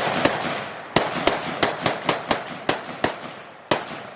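Glock pistol fired in rapid semi-automatic succession, about fifteen quick shots with a short pause after the first two, each crack trailing a brief echo.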